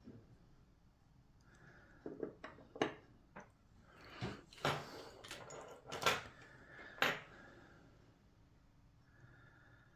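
Small metal parts of an Ultion euro lock cylinder clicking and clinking as they are handled and fitted together: a run of sharp taps and clicks between about two and seven seconds in.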